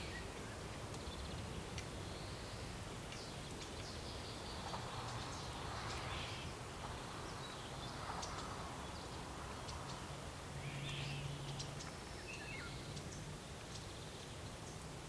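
Scattered short chirps and squeaks of small songbirds over a steady low background hum. One call near the end glides downward.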